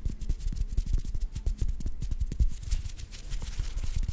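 Fingers fluttering rapidly close to a microphone: a fast, uneven run of soft thumps of moving air and light finger clicks, several a second.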